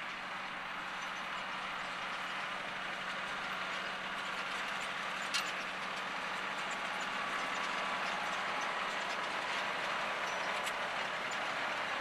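Valtra T214 tractor's six-cylinder diesel working under load as it pulls a reversible plough through stony ground, growing louder as it comes closer, with a sharp tick about five seconds in.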